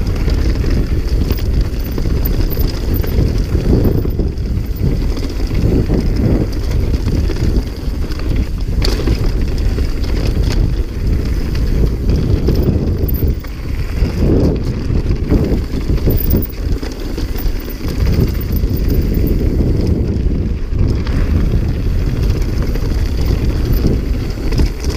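Mountain bike riding fast down a rocky trail: a continuous rattle and clatter of the bike over the rocks, with a few sharp knocks, under heavy wind buffeting on the microphone.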